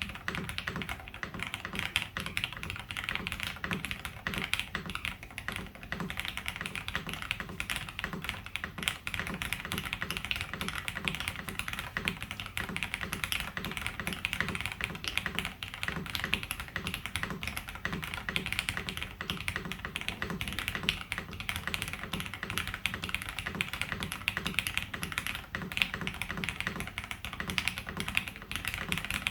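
Custom Tiger Lite mechanical keyboard being typed on fast and continuously. It has Alpaca-stem switches in JWK nylon housings, lubed with GHv4 thin oil and fitted with 70 g springs, on a polycarbonate plate with Poron plate foam and JTK keycaps. The rapid, irregular run of keystrokes starts suddenly at the beginning and keeps an even pace throughout.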